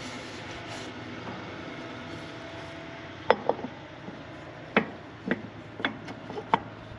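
Sharp metal clinks and taps, about six in the second half, as a metal plate is set down and shifted on top of a Corken compressor's cylinder. A steady low hum runs underneath throughout.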